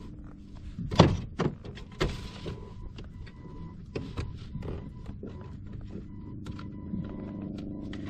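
A series of knocks and thumps, the loudest about a second in, with a brief hiss just after two seconds, over a low steady hum.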